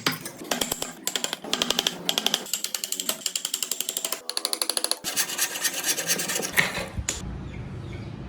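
A hand tool cutting wood in quick, regular back-and-forth strokes, a rasping scrape on each stroke, in several short runs. A steady low hum takes over near the end.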